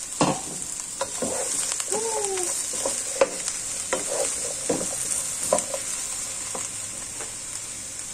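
Diced vegetables sizzling in olive oil in a frying pan, with a steady hiss, while a wooden spatula stirs them, scraping and knocking against the pan in quick strokes. The stirring strokes thin out over the last couple of seconds.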